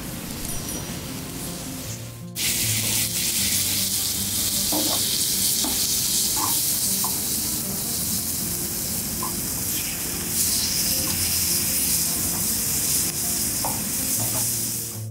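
Chopped eggplant, tomatoes and peppers sizzling loudly in oil on a hot saj griddle, the sizzle starting suddenly about two seconds in. There are occasional short taps as a utensil stirs them.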